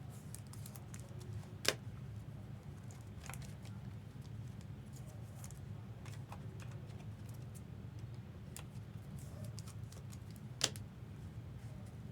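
Trading cards and their plastic holders being handled: light scattered ticks and rustles, with two sharper clicks, one about two seconds in and one near the end, over a steady low hum.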